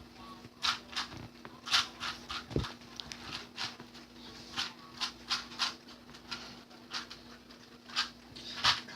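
Rubik's cube being twisted during a solve: short plastic clicks and scrapes of the layers turning, irregular and about two a second with brief pauses, over a steady low hum.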